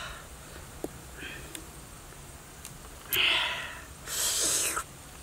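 A man eating langsat fruit draws two loud, sharp breaths through his nose and mouth, about three and four seconds in. Before them come faint clicks from the fruit being peeled.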